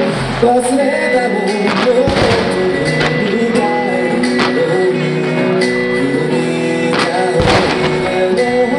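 A song with a singing voice and backing instruments, playing loudly without a break. A few deep thuds cut through it, about half a second in, around two seconds in and near the end.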